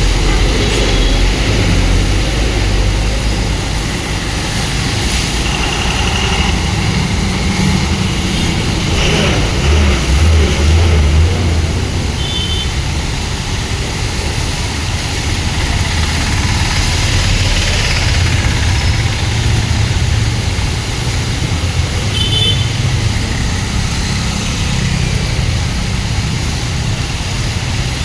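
Steady low rumble of a motor vehicle running, with two short high tones about twelve and twenty-two seconds in.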